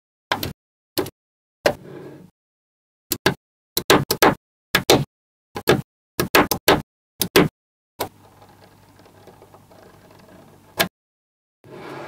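Small magnetic balls clicking sharply together as they are set in place, some singly and some in quick clusters of two to four, with silent gaps between. Near the end comes a few seconds of faint steady background noise, closed by one more click.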